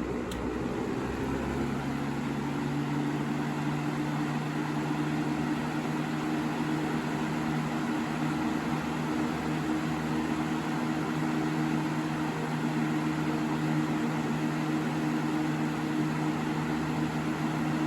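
Holmes HBF2002A 20-inch box fan running on medium speed: a steady rush of air over a low motor hum, which settles in about a second in as the blades come up to speed.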